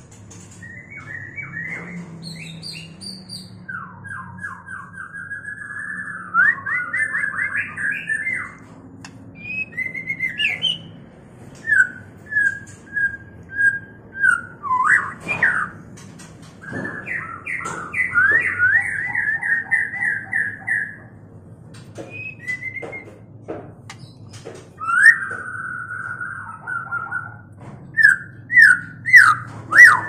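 White-rumped shamas in breeding condition singing and calling. A run of clear whistled phrases, short chips and fast trills comes with brief gaps, and a string of rapid repeated notes starts near the end.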